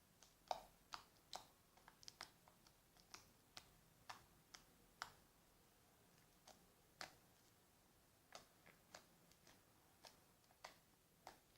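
A run of faint, sharp little clicks at uneven intervals, about twenty in all, with quieter pauses between them. The loudest comes about half a second in.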